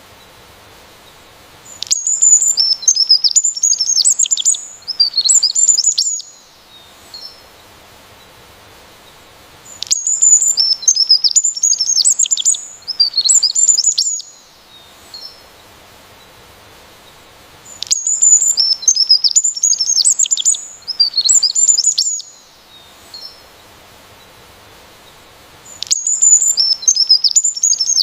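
A songbird singing bursts of rapid, high chirping notes, each bout about four seconds long and the same phrase coming back every eight seconds or so, with a few single chips in the gaps.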